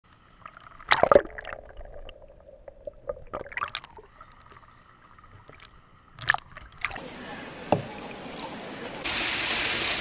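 Kayak paddle strokes splashing and sloshing water, a handful of scattered strokes. From about seven seconds a steady rushing noise sets in, jumping louder near the end.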